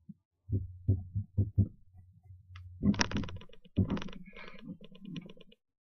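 Hands patting and rubbing cream powder over the face close to the microphone: about five soft, dull pats in the first two seconds, then louder rubbing and rustling with quick faint clicks.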